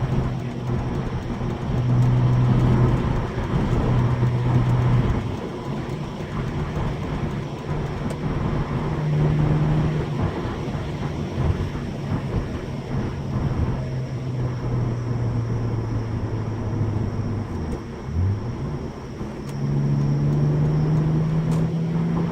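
Audi 2.7-litre twin-turbo V6 with replacement K04 turbos pulling under boost. The engine note holds, drops off and comes back with throttle and gear changes, with one quick shift about 18 seconds in, then climbs steadily near the end. Road and wind noise run underneath.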